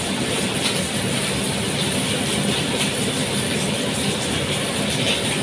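Steady sizzling of chicken cooking in a frying pan on the stove, with a wooden spatula stirring blended saluyot in a pot beside it.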